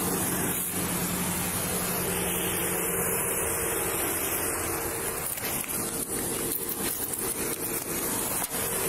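Steady outdoor hiss with a low hum, picked up by a police body camera's microphone beside a parked car, with a few light knocks in the second half.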